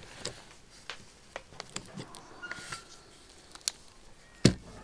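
Light scattered clicks and ticks of a hand screwdriver with a socket bit working on an aluminium bicycle pedal while its axle nut is tightened, with one sharper knock near the end.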